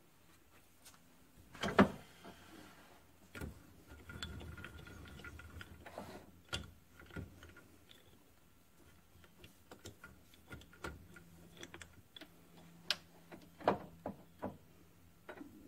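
Scattered metal clicks, clanks and knocks as a drill chuck and drill bit are set up in the tailstock of a Grizzly G9972Z metal lathe, ready to drill the centre of a broken bolt. The loudest knock comes about two seconds in, followed by a couple of seconds of softer rough noise, then clusters of smaller clicks near the end.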